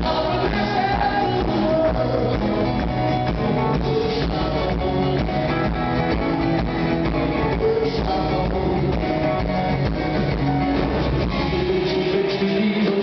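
Live rock band playing, heard from the audience: male lead vocal over electric guitar, bass guitar, keyboard and drum kit.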